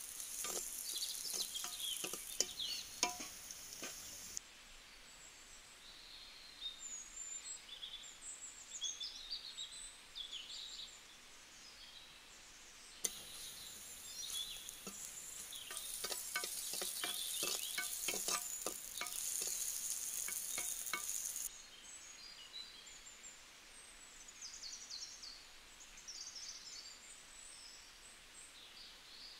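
Pirandai stems and dried red chillies sizzling as they are stir-fried in a clay pot, a steel ladle clicking and scraping against the pot. The frying comes in two stretches, with birds chirping in the quieter stretches between.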